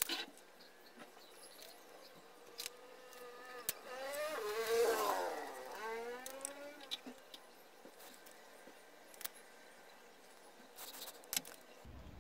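Light clicks and taps of hand soldering work on transistor legs, with a buzzing drone through the middle seconds that rises and then falls in pitch, loudest about five seconds in.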